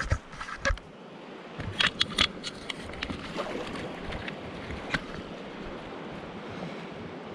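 Steady rush of flowing river water, with a few sharp clicks and knocks: a cluster about two seconds in and a single one near five seconds.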